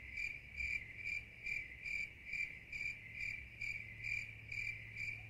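High-pitched, cricket-like chirps repeating evenly about twice a second, over a low steady hum.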